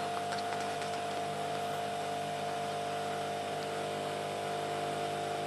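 Philips Senseo HD7814 coffee pod machine brewing: its pump runs with a steady hum while hot water is pushed through the coffee pod.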